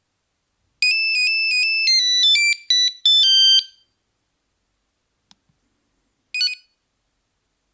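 Nokia 3310 playing a monophonic ringtone: a quick run of high beeping notes, stepping up and down, for about three seconds, then it stops. A click follows, then a brief snatch of another beeping melody near the end.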